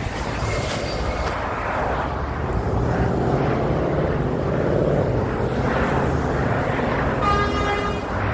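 Steady road traffic: cars and trucks driving past on a multi-lane road, a continuous rumble with tyre noise. Near the end a brief steady pitched tone sounds for under a second.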